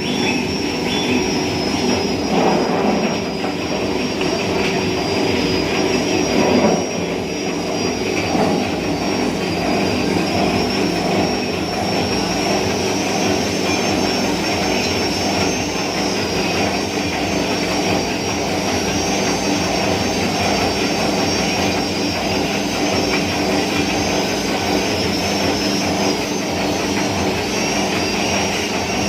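Turmeric slicing machine running steadily: a continuous mechanical whir with a thin high whine that wavers slightly in pitch, and a few louder swells in the first several seconds.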